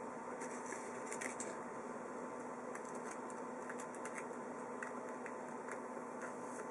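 Faint rustling and light clicks of Magic: The Gathering trading cards being handled, in small clusters about a second in and again around three to four seconds, over a steady background hum.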